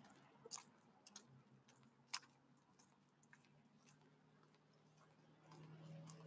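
Near silence with a few faint, scattered clicks and a faint low hum that comes up near the end.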